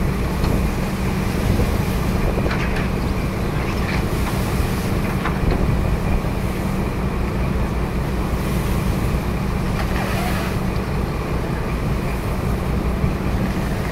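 Boat diesel engines running steadily alongside each other, a constant low drone, with wind buffeting the microphone and water washing between the hulls.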